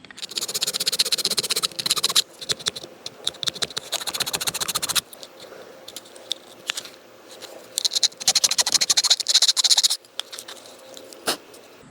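A hand file rasping rapidly back and forth, shaving down the alignment pins on a Jeep JL hood latch. There are two spells of quick strokes, separated by a pause of a few seconds with only light clicks.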